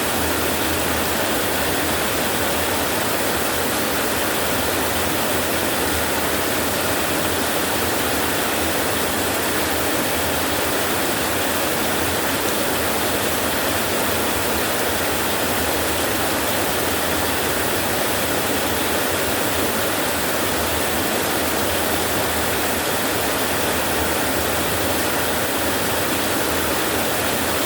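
Heavy rain falling steadily on a metal roof, a dense, even hiss.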